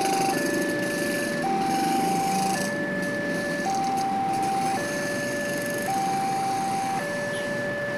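Railway level-crossing electronic warning alarm sounding a two-tone alternating signal, switching about once a second, while the crossing barrier is down for an approaching train. Motorcycle traffic runs underneath.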